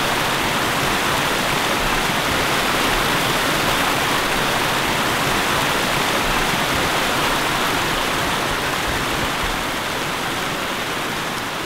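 Rushing mountain river: a steady, even roar of fast-flowing water, easing slightly near the end.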